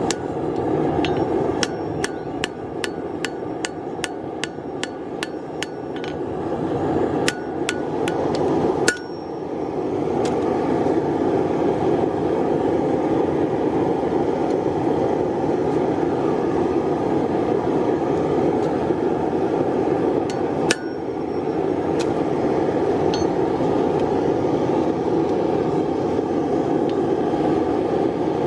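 Hammer striking hot steel on an anvil while forging a knife blade: a quick run of ringing blows, about three a second, for the first six seconds, then a few single blows, the last well past the middle. Under the blows is a steady rushing noise that grows louder after the run of blows ends.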